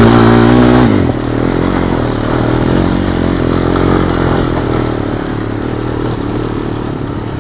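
Honda Recon ATV engine revving high under throttle, dropping sharply about a second in, then running on at lower revs as the quad is ridden.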